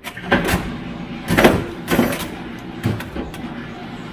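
Built-in dishwasher being started: several loud clunks and clicks from its control dial and door in the first three seconds, as a steady running hum comes on and keeps going.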